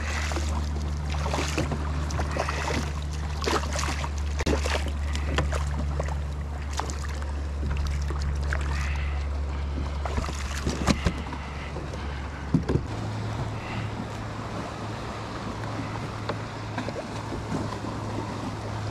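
Hooked sheepshead thrashing and splashing at the surface beside a kayak as it is brought in, with knocks on the hull. Underneath runs a steady low hum that changes pitch about two-thirds of the way through.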